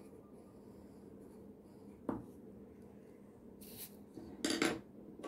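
Graphite pencil scratching lightly on drawing paper over a steady low hum, then a sharp tap about two seconds in and a brief louder rustle near the end as the pencil is lifted off the sheet and set down on the desk.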